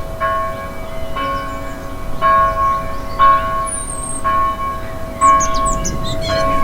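A church bell tolling, struck about once a second with the same note each time, while small birds chirp and twitter.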